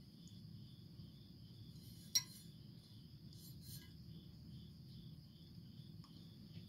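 A single sharp metallic clink about two seconds in as the cast-aluminium bell of a Nathan K5H train horn is handled, with a few softer knocks just after. Underneath, a faint low hum and a faint regular chirping, about two to three pulses a second.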